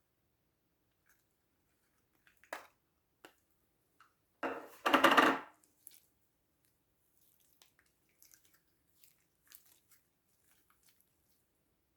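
Slime being handled: a few small clicks and taps, then a loud crackling squish lasting about a second near the middle.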